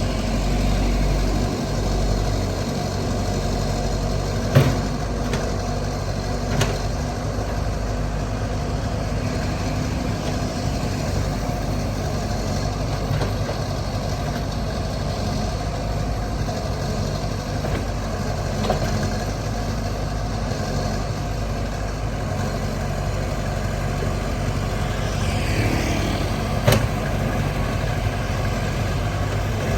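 Diesel engine of heavy earthmoving equipment running steadily, with a few sharp knocks, the loudest about four and a half seconds in and again near the end.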